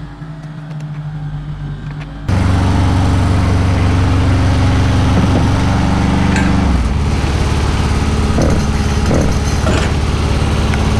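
Spider lift's engine running the hydraulics as the boom raises the basket. It jumps abruptly to a loud, steady run about two seconds in, and its note changes a few seconds later.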